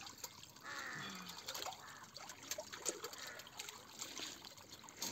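Small stream of spring water trickling while dishes are rinsed in it, with many light clicks and splashes.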